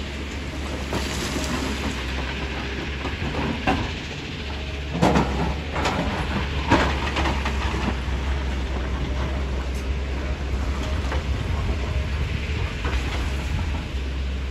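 Tata Hitachi hydraulic excavator's diesel engine running steadily while it loads broken stone into a dump truck. Rocks clatter and knock against each other and the steel truck bed, loudest in a cluster of strikes about five to seven seconds in.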